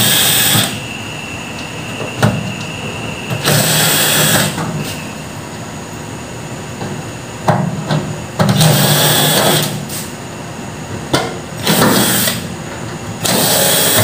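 Cordless drill-driver running in short bursts of about a second each, five times or so, backing the screws out of a microwave oven's metal cover. A few sharp clicks fall between the bursts.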